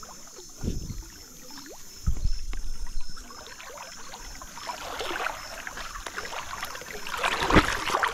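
Shallow river water splashing and sloshing, with a few dull low thumps; it is loudest and most splashy near the end.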